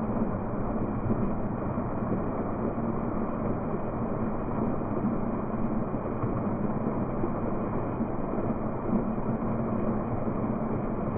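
Water from a small fountain's single vertical jet falling and splashing steadily into its stone basin: a continuous, even splashing with no breaks.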